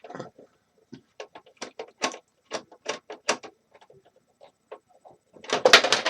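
Removing screws from a space heater's casing by hand: a run of small, irregular clicks and ticks as the screwdriver works the screws and metal and plastic parts knock together, with a denser clatter about five and a half seconds in.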